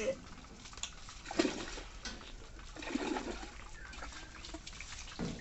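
Water rushing and splashing into a tanker as it is filled from a well through a suction pipe, with two short calls about a second and a half and three seconds in.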